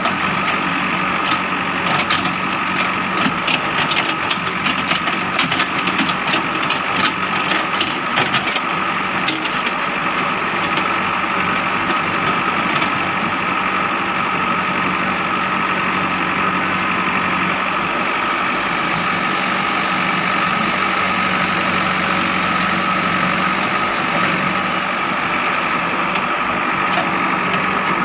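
JCB 3DX backhoe loader's diesel engine running steadily with a constant whine, with a spell of clattering and rattling in the first third.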